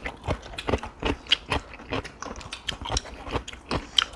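Close-miked chewing and lip-smacking of people eating: an irregular string of wet mouth clicks, about three a second.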